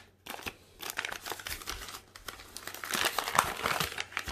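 Crinkling and rustling of a USPS Priority Mail envelope as it is handled and folded back, in short bursts that grow busier in the second half.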